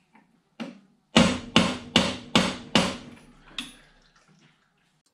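Hammer blows on a socket, driving a Burman CP gearbox's driving gear into its tight-fitting housing. After a light tap come five hard strikes about 2.5 a second, then one lighter blow.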